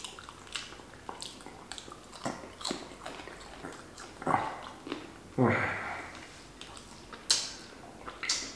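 Close mouth sounds of a person eating fried chicken: wet chewing and repeated lip-smacking clicks, with two short wordless vocal sounds in the middle and finger licking near the end.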